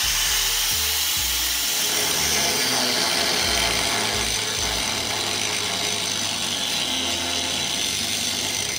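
Handheld power cutting tool with a blade running steadily as it cuts through the truck's bump stops, stopping near the end. Background music plays underneath.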